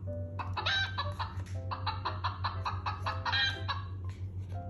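Recorded hen clucking played from a children's sound book's speaker: a busy run of short clucks over a steady low hum.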